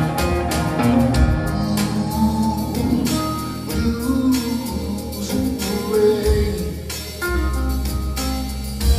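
Live blues band: a Telecaster-style electric guitar plays lead lines over the band's backing.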